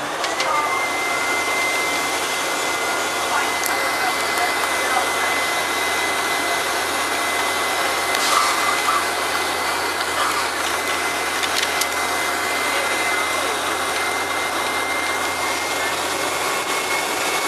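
Bus engine and road noise heard from the rear seats over the engine while the bus cruises at steady speed, with a steady high-pitched whine on top that rises slightly near the end.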